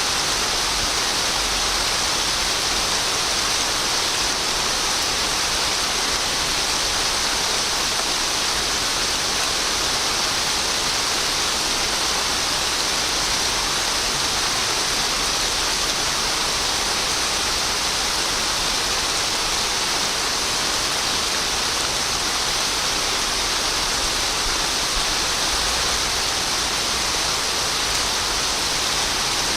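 Steady, even rain with no distinct drops or changes.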